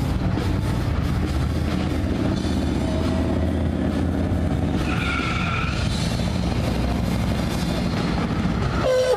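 Classic and everyday cars driving past on a multi-lane road: a steady rumble of engines and tyres on pavement, with a brief high squeal about five seconds in.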